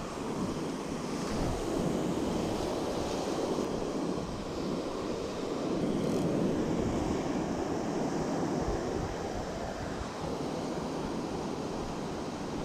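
Ocean surf breaking and washing up a sandy beach, swelling and easing, with wind on the microphone.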